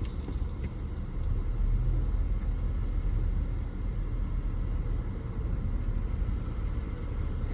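A car's steady low rumble heard from inside the cabin, its engine running.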